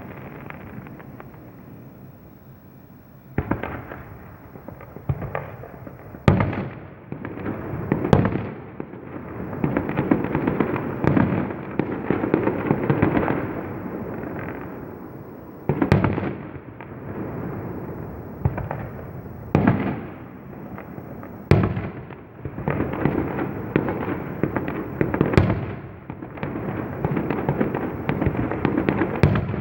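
Fireworks going off: a continuous crackle and rumble of many explosions, with loud single bangs every few seconds.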